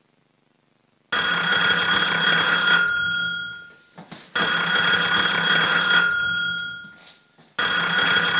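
Old-style telephone bell ringing: two rings of about two seconds each, fading out, and a third starting near the end.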